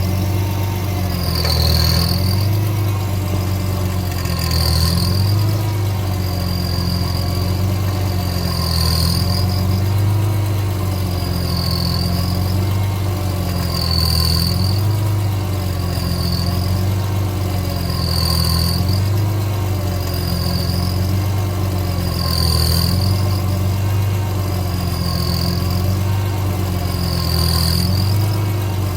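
BMW E46 M3's S54 inline-six idling steadily while the steering wheel is rocked back and forth, with a short high-pitched squeak about every two seconds and a tone beneath it that wavers up and down in the same rhythm. This is the owner's unexplained noise, which comes only when the engine is hot.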